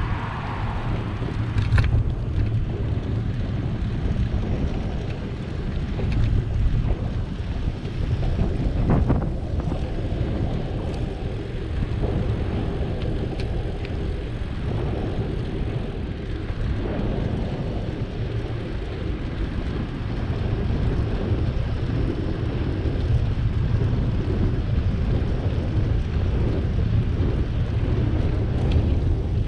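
Wind buffeting the microphone of a camera riding on a moving bicycle: a steady low rumble, with a few brief knocks.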